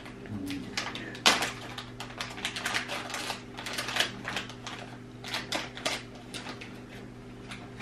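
Packaging crinkling and crackling in the hands as a small packet is handled and opened: a quick run of sharp crackles, the loudest about a second in, then dying away near the end.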